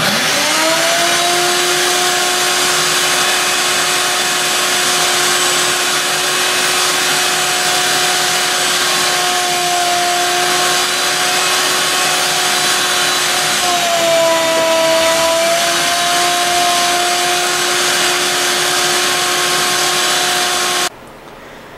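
Wet/dry shop vacuum switched on, its motor whine rising to a steady pitch over a strong rush of air as the hose sucks the sand-like media out of a fiberglass water softener tank. The whine drops in pitch for a couple of seconds about two-thirds of the way through, and the vacuum cuts off shortly before the end.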